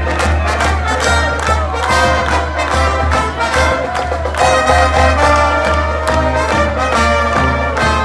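Brass band music playing loudly, trumpets and trombones over a steady beat.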